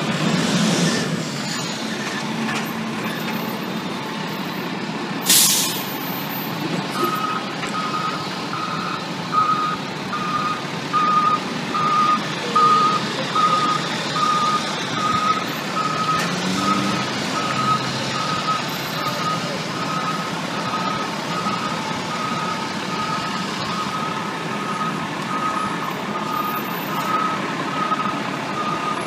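An FDNY pumper fire engine backs into its firehouse bay. A short, loud hiss of air comes about five seconds in, then from about seven seconds in its reversing alarm beeps steadily, about three beeps every two seconds, over the running engine.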